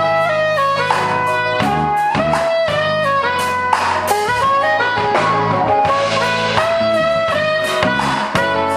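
Instrumental R&B ballad: a soprano saxophone plays the melody in held notes and short phrases over a guitar-led backing.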